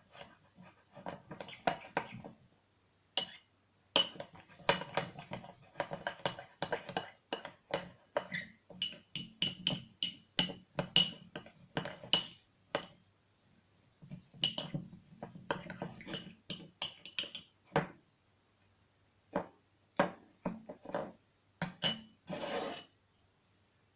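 A utensil clinking and scraping against a dish as slime is stirred and mixed after borax has been added, in irregular runs of quick strikes, some with a short high ring.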